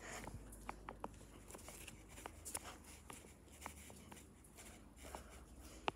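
Faint, scattered light clicks and rustling close to the microphone, over a low steady hum.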